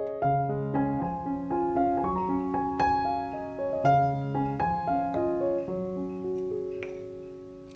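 Background piano music: a gentle melody of single notes over a soft accompaniment, ending on a held chord that fades away.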